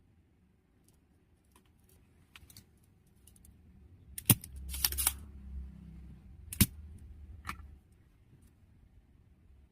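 Small clicks and taps of hard plastic and metal parts being handled, with two sharp clacks about four and six and a half seconds in and a low hum between them.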